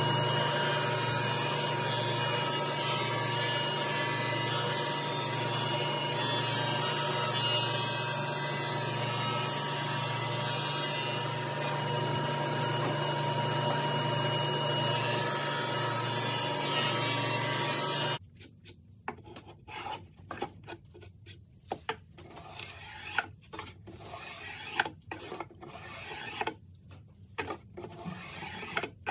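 Table saw running steadily while ripping a thin strip from a board. About eighteen seconds in the sound changes abruptly to a series of irregular, quieter hand-plane strokes shaving a sapele rudder blank.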